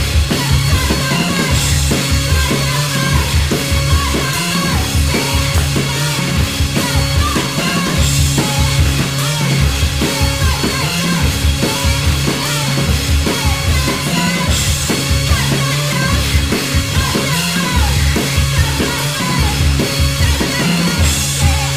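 Sasscore/noise-rock band recording: a fast, busy drum kit with kick and snare over low bass notes, with a bright accent about every six and a half seconds.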